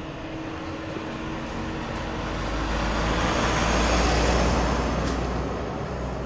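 A Chevrolet SUV drives up and pulls to a stop. Its engine and tyre noise grows to a peak about four seconds in, then eases off over a low engine hum.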